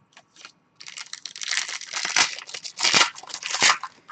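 Wrapper of a trading-card pack being torn open and crinkled. A dense crackling starts about a second in, with sharp louder rips within it.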